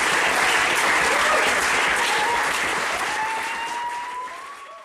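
Audience applauding, with whoops and a long whistle near the end, fading out over the last couple of seconds.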